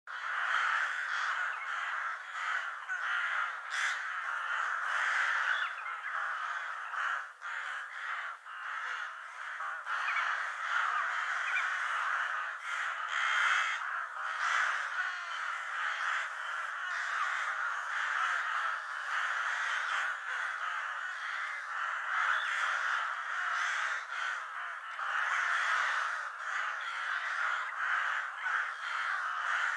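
A flock of crows cawing, many calls overlapping without a break.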